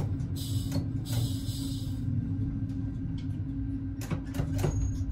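AKN VTA diesel railcar rolling slowly to a stop at the end of the line, heard from inside the train: a steady engine hum with a held tone over a low rumble, and a few short clicks and knocks near the end as it comes to rest.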